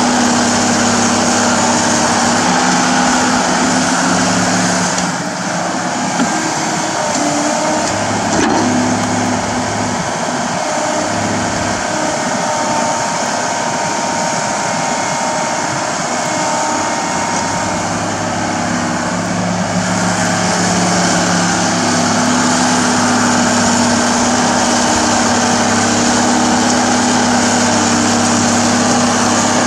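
Diesel engine of a Komatsu crawler excavator running steadily under load as it digs, with a short knock about eight seconds in. The deep low rumble thins out for a stretch in the middle, then returns.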